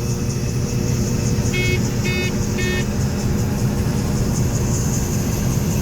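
Combine running steadily, its engine and machinery making a constant drone. About one and a half seconds in, three short electronic beeps sound a little over half a second apart.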